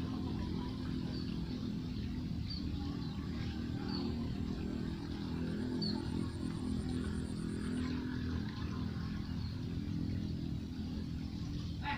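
A motor droning steadily, with a few short faint high chirps over it.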